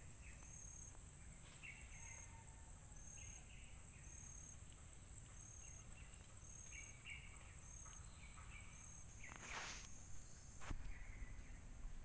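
Forest insects buzzing in a steady high-pitched drone, with a second, softer insect call pulsing about once a second, broken off about nine seconds in; short bird chirps come and go over it, and there is a brief burst of noise near the end.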